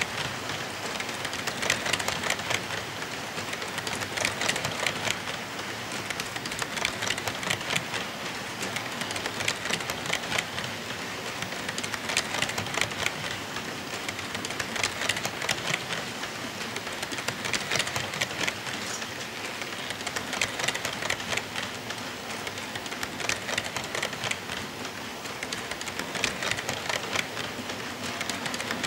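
HO-scale model train of tank cars rolling past on the track: a steady rattling roll of small wheels, full of rapid clicks as they pass over the rail joints, swelling and fading every few seconds.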